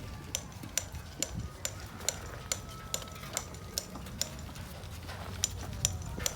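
Light, sharp metallic ticks repeating evenly about twice a second, coming quicker near the end, over a low background rumble.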